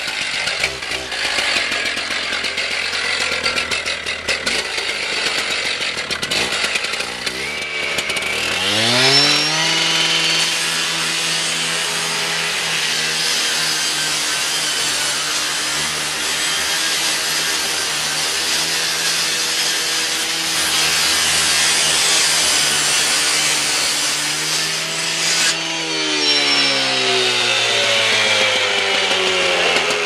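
Two-stroke Stihl gas-powered rotary cut-off saw idling, then revved up steeply about eight seconds in and held at full speed with a steady engine note and a dense grinding hiss as its blade cuts through a metal garage door. Over the last few seconds the engine pitch falls.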